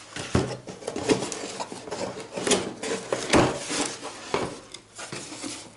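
Small hard parts and packaging from a racing drone kit being handled and rummaged through: irregular clicks, knocks and rustling.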